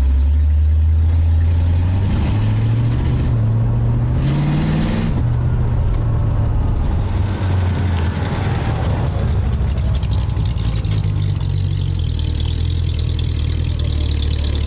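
Hopped-up 1972 Ford Pinto drag car's engine running under way, climbing in pitch as it accelerates from about two seconds in, dropping back near five seconds, then holding a steady pull.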